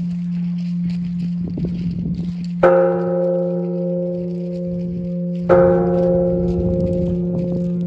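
Japanese Buddhist temple bell struck twice, about three seconds apart. Each strike rings out with several clear tones that fade slowly over a low steady hum that carries on throughout.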